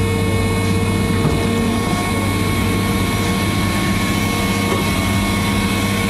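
Excavator's diesel engine running steadily under hydraulic load while the quick coupler curls in and lifts the bucket, heard from inside the cab.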